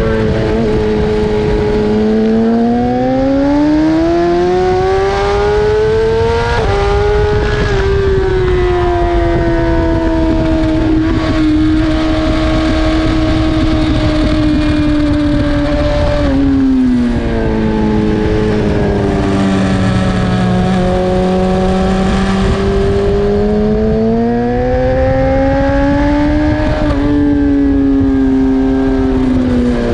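BMW S1000RR's inline-four engine at racing speed: the revs climb through a gear with a quick upshift about six and a half seconds in, hold, fall away around the middle, then climb again with another shift near the end. A loud steady rush of noise runs underneath.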